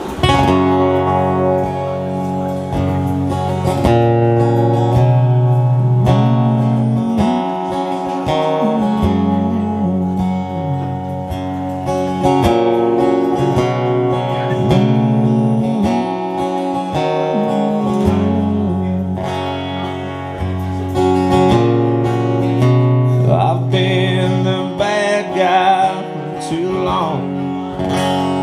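Instrumental intro of an acoustic country song: strummed acoustic guitar over sliding low bass notes, with a bending higher melody line coming in near the end.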